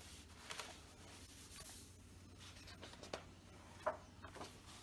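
Large paper pages of an oversized book being turned and handled by hand: a soft rustle with a few short crisp flicks of paper, the sharpest one a little before the end.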